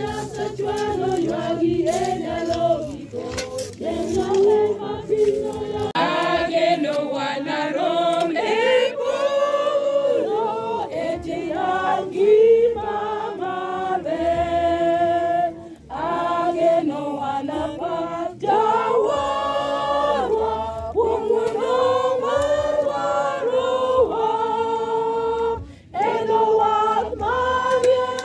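A choir of voices singing, with short breaks between phrases about halfway through and again near the end.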